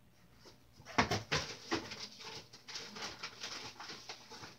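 Someone rummaging through a dresser, moving objects about: irregular knocks, clatters and rustles that start about a second in.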